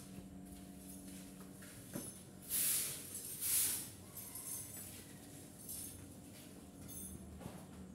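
Workshop background: a steady low hum, with two short bursts of hiss about two and a half and three and a half seconds in, and a few faint clinks.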